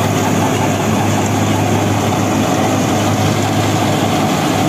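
Mahindra Arjun Novo 605 tractor, fitted with a turbo, running steadily under load while driving a straw reaper through wheat stubble: a steady low engine note mixed with the reaper's running machinery.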